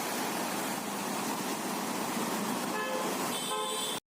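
Steady rushing wash of rainwater running along a wet street, with a vehicle horn honking twice briefly near the end. The sound cuts off abruptly at the end.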